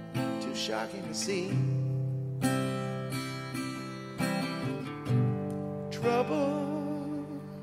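Acoustic guitar strummed and picked, playing sustained chords, with a voice singing along in places, wavering with vibrato near the end.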